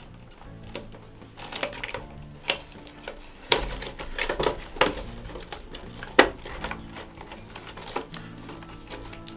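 Action-figure packaging being opened by hand: irregular clicks, taps and rustles of cardboard and plastic, with sharper knocks about 3.5 and 6 seconds in.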